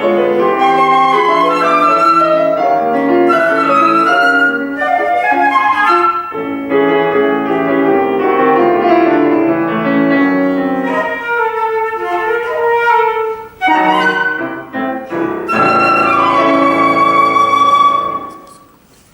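Flute with piano accompaniment playing the closing bars of a classical piece, ending on a long held final chord that stops about eighteen seconds in.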